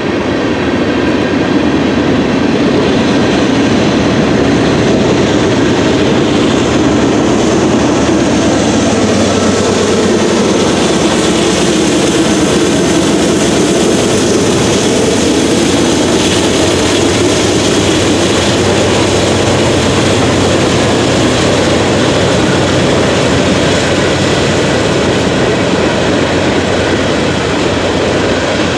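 Norfolk Southern freight train 13V rolling past on the upgrade, a loud, steady rumble of railcar wheels on the rails that holds even for the whole stretch.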